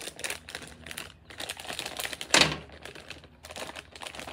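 A bag of cosmetics being opened and rummaged through by hand, its packaging crinkling and rustling in a quick run of crackles, with one louder crunch about two and a half seconds in.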